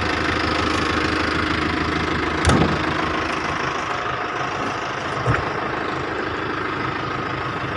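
Isuzu Elf NKR's four-cylinder diesel engine idling steadily. Two short knocks come about two and a half and about five seconds in.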